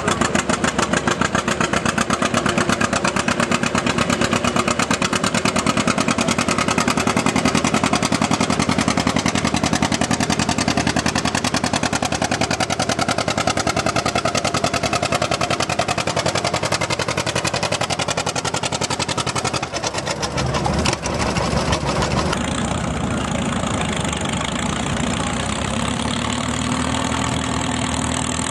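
Antique John Deere two-cylinder tractor engine popping in a fast, even beat as it pulls a stone boat under load. About twenty seconds in the sound breaks off, and another tractor's engine runs more smoothly.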